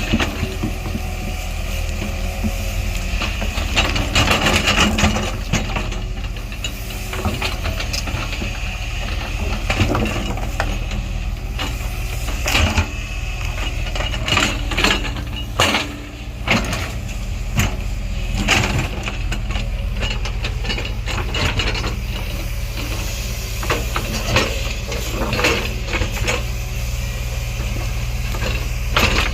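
Diesel engine of heavy earthmoving machinery running steadily, with many irregular knocks and rattles from the machine at work.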